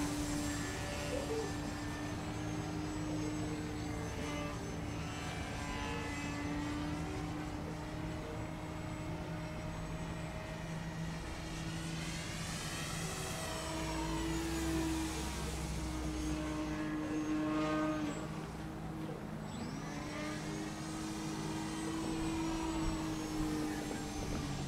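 Electric motor and propeller of a Flyzone Switch RC floatplane droning in flight. Its pitch rises and falls a few times as the plane passes and the throttle changes.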